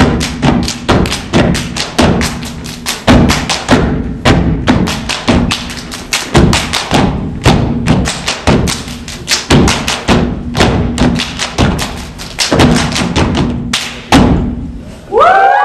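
Step team stepping: fast, rhythmic stomps and hand claps in a driving pattern, with a couple of brief lulls. Near the end, a whooping shout from the crowd breaks in.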